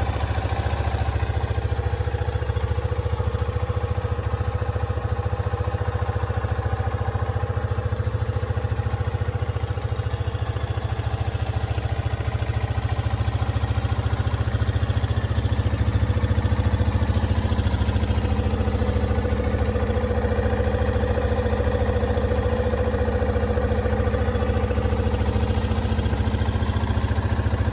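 Yamaha XT250's air-cooled single-cylinder four-stroke engine idling steadily.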